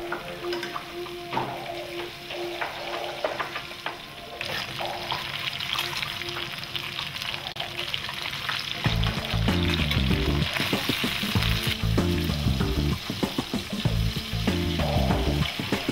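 Catfish fillets frying in olive oil in a pan: a steady sizzle that grows louder about four seconds in, with light clicks of metal tongs against the pan as the fillets are turned.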